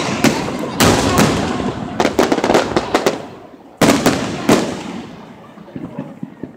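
Aerial fireworks shells bursting: loud bangs about a second in, a quick cluster around two seconds and another near four seconds, each booming and fading out slowly. Light crackling comes near the end.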